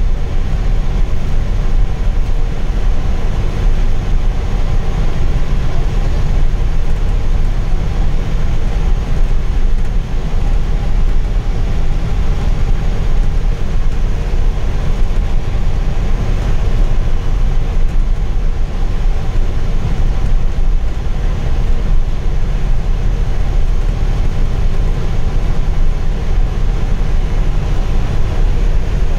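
Bus cabin noise at highway speed: a steady, low engine drone mixed with road and tyre noise, unchanging throughout.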